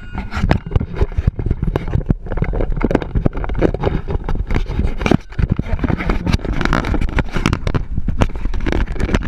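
Close handling noise on a GoPro's own microphone: fingers rubbing, scraping and knocking on the camera housing, a dense irregular run of scrapes and clicks over a steady low rumble.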